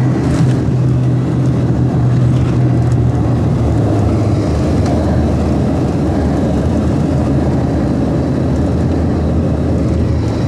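Small propeller plane's engine and cabin noise heard from inside the cabin, running loud and steady low over a dirt airstrip. A low hum runs under it and shifts lower about halfway through.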